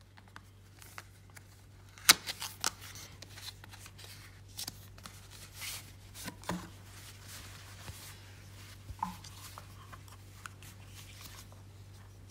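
Hands handling unboxing packaging: a box tray, a cloth pouch and a folding plastic tripod rustling and knocking, with scattered clicks and taps, the sharpest about two seconds in. A faint steady low hum runs underneath.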